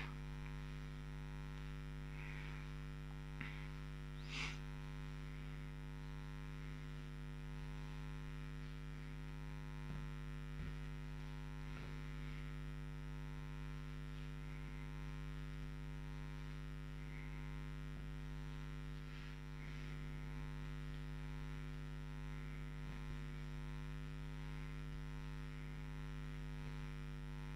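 Steady electrical mains hum, with a few faint, brief handling sounds, the loudest about four seconds in.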